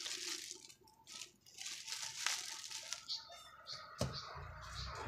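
Clear plastic bag of ink bottles crinkling as it is handled, with a knock about four seconds in as packaging in the cardboard box is handled.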